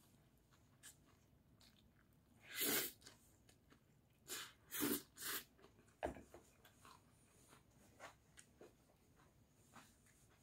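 A man eating spicy mixed noodles from a stainless steel bowl: a few short, sharp breathy noises as he takes in noodles and air, about two and a half seconds in and three more around four to five and a half seconds in, then a single sharp click, with faint chewing.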